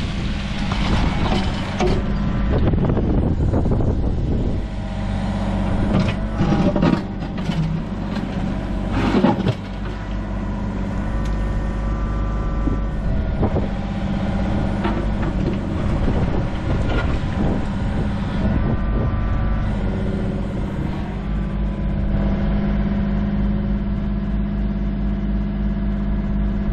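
Mini digger's diesel engine running steadily close by, with several sharp knocks and scrapes of the bucket digging into wet mud and stone a few seconds in. Hydraulics whine briefly at intervals as the boom and bucket move.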